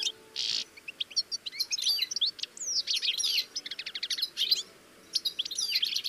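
European goldfinches twittering: a fast, jumbled run of high chirps and trills, with a short burst of hiss about half a second in and a brief pause near the end.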